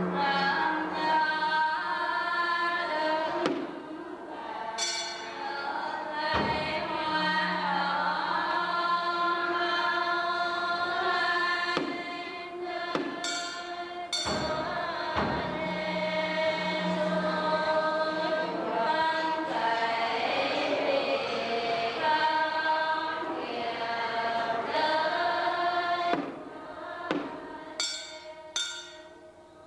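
Slow devotional music: sustained choir-like voices over instrumental backing, with a few percussive strikes, growing quieter near the end.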